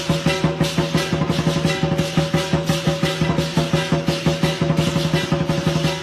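Background music with a fast, steady percussion beat over held tones.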